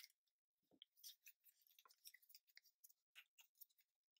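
Near silence, with faint scattered clicks and rustles of a plastic action figure's hands being handled and swapped.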